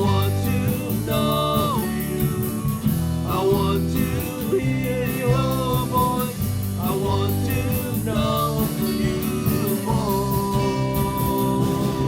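Worship band playing a slow contemporary worship song, with a singer's voice holding and sliding between long notes over a steady beat.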